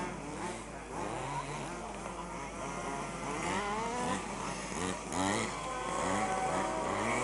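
Several 1/5-scale off-road RC buggies' small two-stroke petrol engines racing, their pitches rising and falling over one another as they rev and lift off through the corners.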